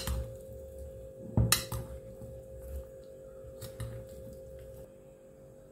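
A Greek salad being tossed in a glass bowl with a metal utensil. Handling rustle of the vegetables, with a few sharp clinks of the utensil against the glass; the loudest comes about one and a half seconds in.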